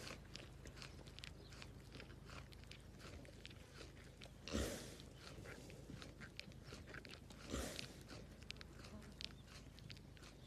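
Cow chewing and crunching its feed, a steady run of small crunches, with two louder noisy puffs partway through.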